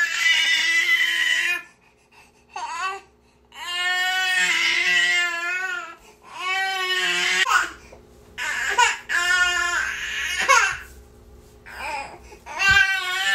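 Baby crying in a run of loud, high wails, each about one to two seconds long, separated by short catches of breath.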